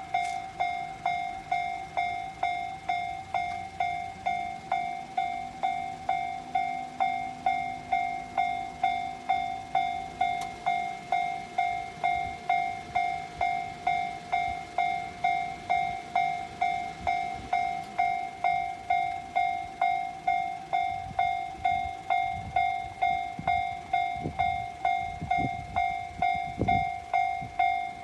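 Japanese railway level-crossing alarm bell ringing repeatedly in a fast, even rhythm: the warning that a train is approaching. In the last third, a train rumbles over the crossing with low, irregular knocks from its wheels.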